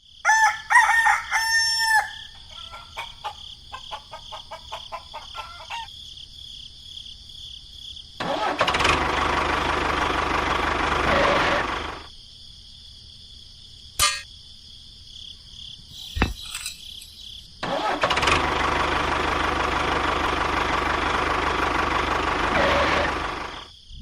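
A rooster crowing in the first two seconds, followed by scattered clicks and then two long stretches of steady engine noise, each about four seconds, with a sharp click and a thump between them.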